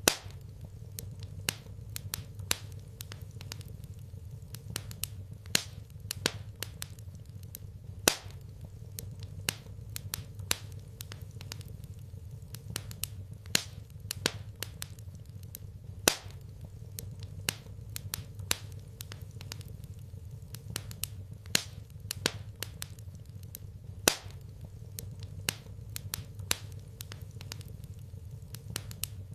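Wood fire crackling in a fireplace, with irregular sharp pops and snaps, a few louder than the rest, over a steady low hum.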